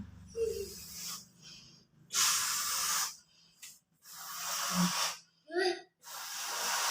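Air rushing into a balloon as it is inflated, in three bursts of about a second each with short pauses between. A child's voice makes a brief sound between the bursts.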